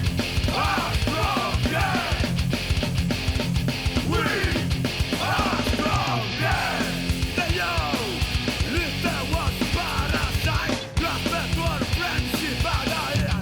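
Rock music with a fast, steady drum beat and vocals.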